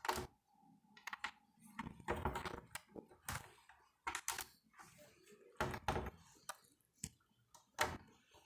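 Marker writing on a whiteboard: irregular short scratches and taps of the tip on the board, one every second or so.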